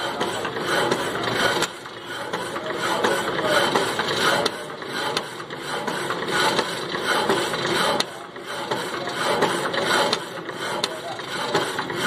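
Band saw blade cutting through a solid metal round bar: a steady, rough mechanical cutting noise with a few sharp clicks.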